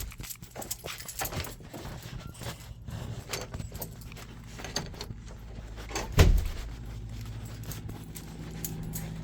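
Footsteps with small clicks and light rattles of handling, and one louder thump about six seconds in.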